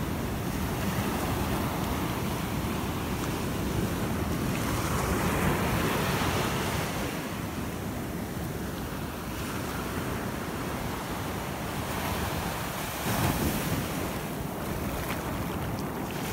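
Small sea waves washing up and back over sand in the shallows, the rush swelling and easing in slow surges, with wind rumbling on the microphone.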